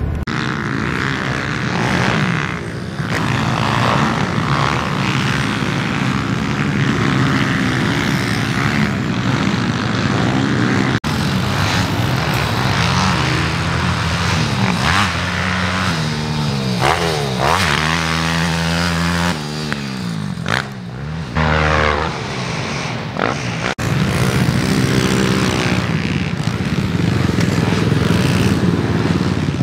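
Small single-cylinder four-stroke pit bike engine revving hard on a motocross track, its pitch repeatedly climbing and dropping as the rider accelerates and backs off over the jumps.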